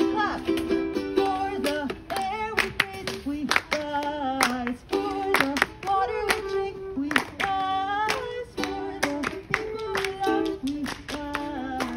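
A solo singer singing a folk-style anthem to a strummed ukulele. The strums keep a steady rhythm of sharp strokes under held, bending sung notes.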